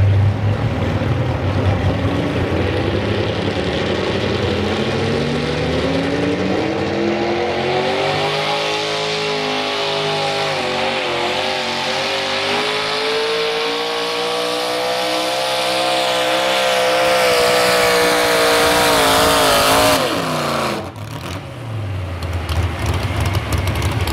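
Modified 4x4 pulling truck's engine at full power pulling the sled. The engine note climbs over the first several seconds and holds high with a wavering pitch. It drops away abruptly about twenty seconds in, leaving a low rumble.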